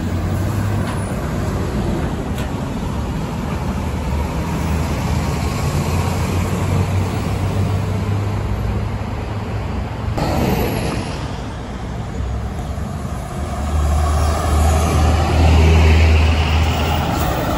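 Diesel buses running at a roadside stop: a steady low engine drone, with a sudden burst of noise about ten seconds in. Near the end a bus engine grows louder with a rising whine as it accelerates.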